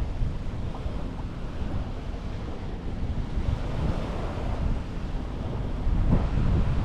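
Small sea waves washing onto a beach, with wind rumbling on the microphone. A wave builds and washes in around the middle, and a sharper splash comes near the end.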